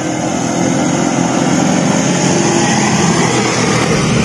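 Small vehicle engine running steadily under way, with a steady rushing noise over it.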